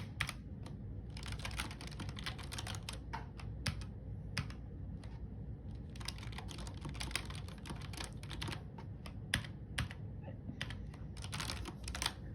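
Typing on a backlit computer keyboard: runs of rapid key clicks broken by short pauses, with a few single louder keystrokes standing out, over a faint steady low hum.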